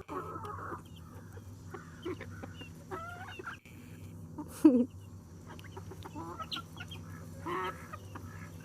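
Chickens clucking in short scattered calls, with one loud, sharp squawk about halfway through.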